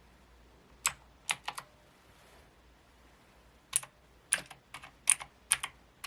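Micronics MANIC Z-K9 mechanical keyboard keys being pressed one at a time: sharp separate clicks, a few near the start, then a quicker run of keystrokes from the middle on.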